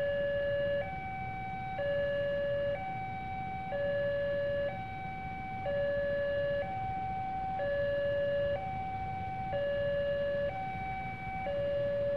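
Railway level-crossing warning siren sounding a steady two-tone alarm, alternating between a lower and a higher tone about once a second. It signals that the barrier is down and a train is about to pass.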